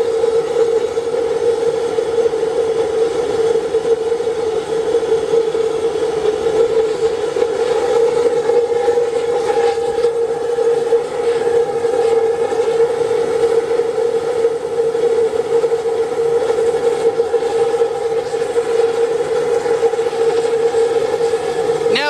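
Homemade siphon-nozzle waste-oil spray burner firing on compressed air: a steady rush of flame and air with a strong humming tone. Its output is being varied on the air valve alone, with the fuel left untouched.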